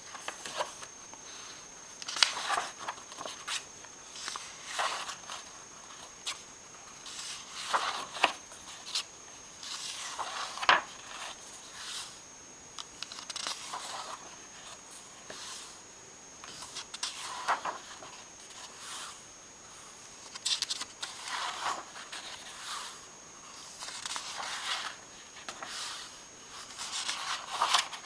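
Pages of a thin paperback book being turned by hand one after another, each turn a short paper rustle or flap, coming irregularly every one to three seconds.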